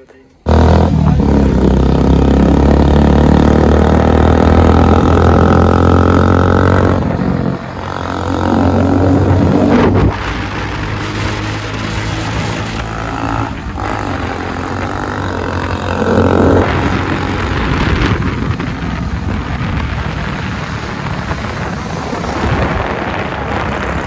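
Motorcycle engine running while the bike is ridden along a street. It starts suddenly and holds a steady note for the first several seconds, dips briefly around seven seconds in, and from about ten seconds on turns into a rougher, rushing sound.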